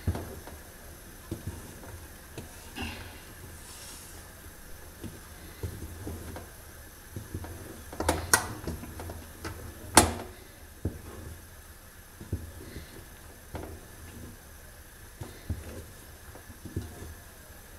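Long wooden spoon stirring a thick sesame-and-hazelnut paste in an aluminium pot, scraping and knocking irregularly against the pot's sides and bottom. Two louder knocks come about eight and ten seconds in.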